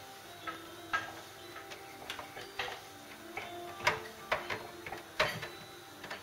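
A dozen or so irregular clicks and light knocks, some with a short ring, the loudest about four seconds in, over faint background music.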